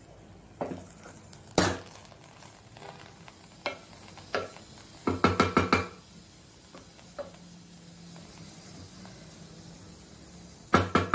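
Wooden spatula stirring cooked rice in a nonstick pan, knocking against the pan now and then, with a quick run of sharp taps about five seconds in and another near the end. A faint sizzle of the simmering rice runs underneath.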